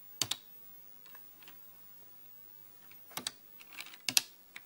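Keystrokes on the TRS-80 Color Computer's keyboard, entering commands to quit the spreadsheet. There is a single key click at the start, a couple of faint taps, then a quick run of about five clicks near the end.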